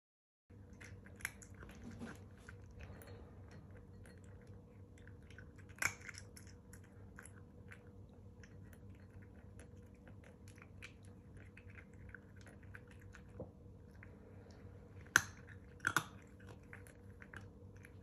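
A cat chewing dry kibble from a bowl: a quick, continuous run of small crunching clicks, with a few sharper clicks among them, the loudest two near the end.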